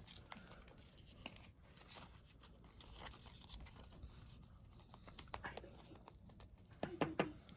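Faint rustling and light scratching of trading cards being handled and turned over in the hands, with scattered soft clicks, a few a little louder near the end.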